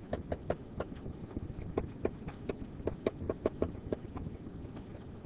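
A pen stylus tapping and clicking on a writing screen while words are handwritten: a quick, irregular run of light clicks, several a second.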